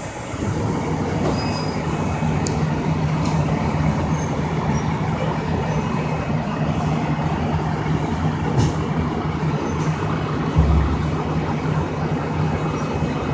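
Heavy truck engine idling steadily, a low even rumble with a held hum. A short low thump about ten and a half seconds in.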